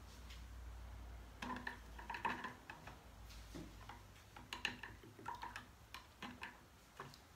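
A run of light clicks and taps, a dozen or so, from painting tools and materials being handled at the worktable, over a faint low hum.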